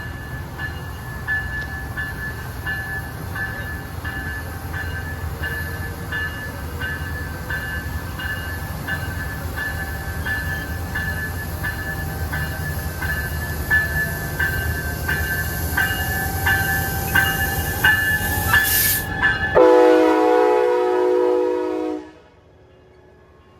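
A train rumbling past with a regular ringing clang about one and a half times a second. About twenty seconds in, the rumble cuts off and a multi-chime train horn sounds for about two seconds, then stops suddenly.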